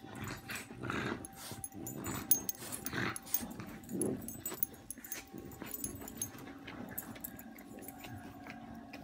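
A dog licking another dog's face over and over: wet licking and snuffling at close range, with dog grunts and collar tags clinking now and then.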